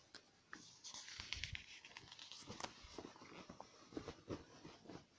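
Faint paper handling as photobook pages are turned and held: a short rustling slide of a page about a second in, with small scattered taps and clicks of fingers on the pages.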